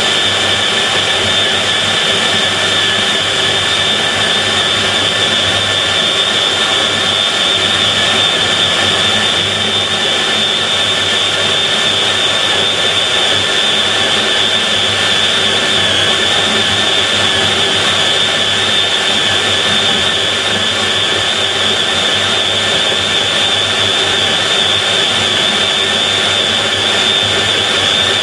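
FEIN KBM 50 Auto magnetic core drill running steadily under load as its 50 mm annular cutter bores through steel under automatic stepper-motor feed. It gives a constant high whine.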